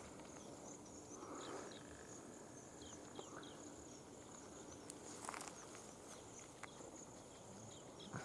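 Faint outdoor ambience: insects keep up a steady high drone, with a few short chirps in the first half and a brief rustle about five seconds in.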